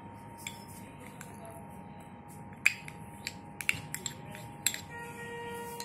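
A spoon clicking and tapping against a small ceramic cup and a glass bowl while paste is scraped out: several sharp clicks, the loudest about two and a half seconds in, over a faint steady hum.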